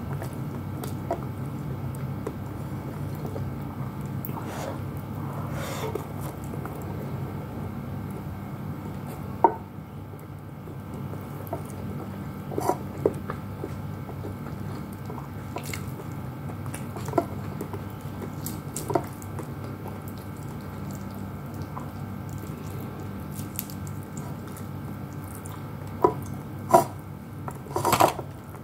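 Wet mouth sounds, lip smacks and chewing from someone eating rice and saucy meat with her fingers. Scattered sharp clicks come every second or two, and a cluster of louder smacks comes near the end, over a low steady hum.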